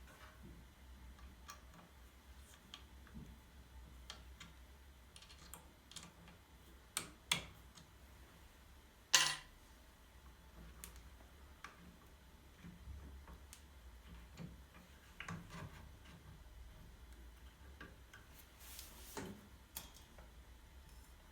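Scattered light clicks and taps, with a pair of sharper knocks about seven seconds in and a louder knock about nine seconds in, over a faint low hum.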